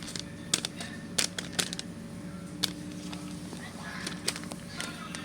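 Paper crinkling and rustling with a few sharp crackles, as a handmade paper blind bag is handled and opened, over a low steady hum.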